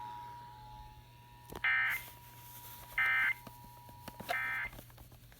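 An Emergency Alert System two-tone attention signal dies away about a second in. It is followed by three short, identical data-burst screeches about a second and a half apart: the EAS digital end-of-message code, heard over FM radio.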